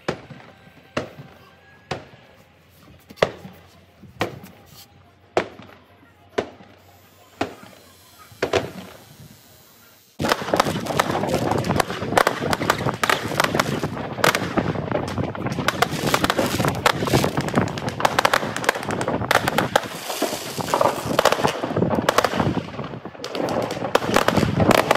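New Year's fireworks exploding. First come single sharp bangs about a second apart. About ten seconds in, these give way to a loud, dense, nonstop crackle of many fireworks and firecrackers going off together.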